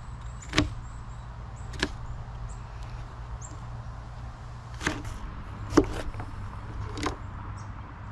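Knife chopping an onion against a board, five sharp separate chops spaced irregularly about one to three seconds apart.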